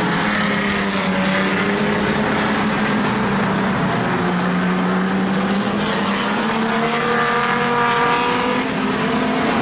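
A pack of pre-1975 classic saloon race cars running on a shale oval, their engines blending into a steady drone, with one engine revving up and easing off about seven to eight seconds in.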